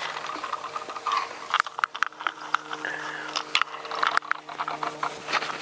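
Spinning fishing reel clicking irregularly as line is pulled off it by hand.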